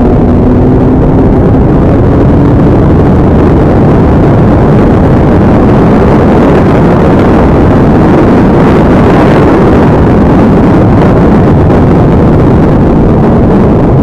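Kawasaki Ninja 1000's inline-four engine pulling hard in fifth gear at close to 200 km/h, its note climbing slowly, under a loud, steady rush of wind over the microphone.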